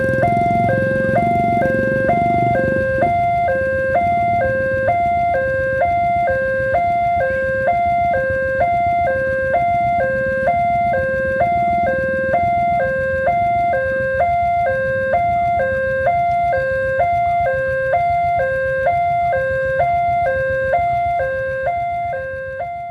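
Railway level-crossing warning siren sounding a steady two-tone electronic alarm, alternating high and low about once a second, with a low rumble under it in the first few seconds. It fades out near the end.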